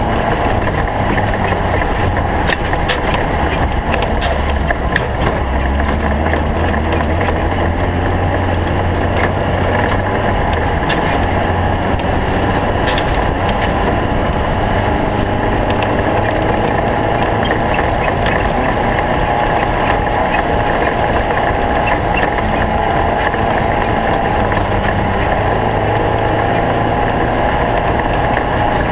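Stock-class Volkswagen Beetle off-road race car driving with its engine running steadily, heard with many sharp rattles and knocks from the car over rough ground.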